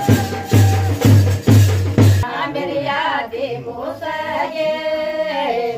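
A drum played with sticks beating about twice a second under music. About two seconds in it cuts to a group of women singing a folk song together.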